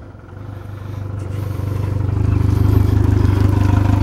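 Mercury 115 hp fuel-injected four-stroke outboard running on a flushing hose out of the water: a steady, low, pulsing engine drone that grows louder over the first two seconds, then holds.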